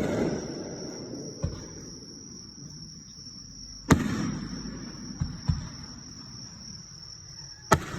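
Distant aerial fireworks shells bursting: three loud bangs about four seconds apart, each followed by a fading rumble, with a few smaller pops between. Crickets chirp with a steady high trill underneath.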